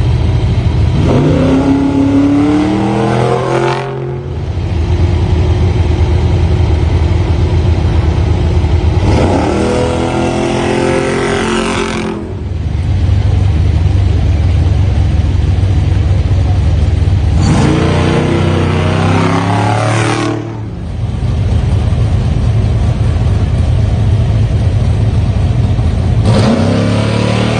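Off-road race trucks leaving a start line one after another: four times, an engine revs hard and climbs in pitch as a truck accelerates away. Between departures, the low rumble of other trucks idling in the queue continues.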